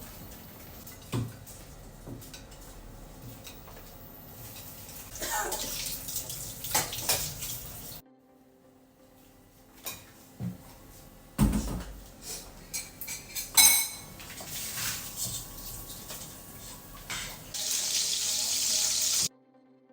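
Kitchen sounds: water running from a tap and dishes and utensils clinking and knocking, in short edited clips. The sound drops off suddenly about eight seconds in, then more knocks and running water follow, cutting off abruptly near the end.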